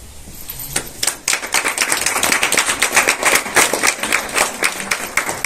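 A small audience clapping: the applause starts about a second in, builds to a dense patter of claps and thins out near the end.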